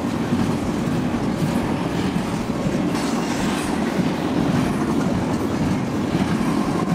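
Double-stack container freight train rolling past: a steady rumble and clatter of wagon wheels on the rails.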